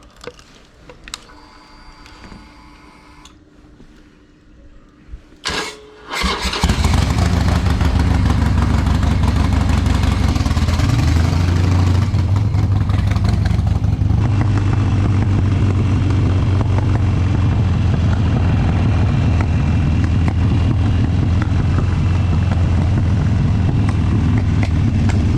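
Harley-Davidson V-twin motorcycle engine being started: a brief crank about five seconds in, then it catches and settles into a loud, steady idle.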